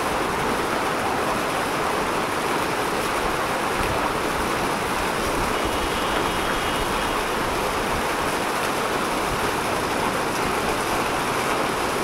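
Muddy floodwater rushing down a flooded street: a steady, even rush of water.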